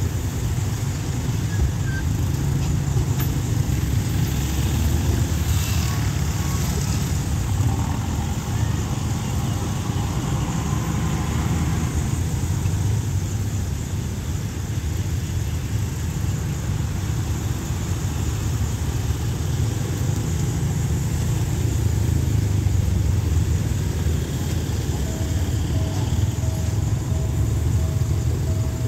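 Road traffic, cars and a pickup truck driving over a railway level crossing, a steady rumble. A faint steady tone starts near the end.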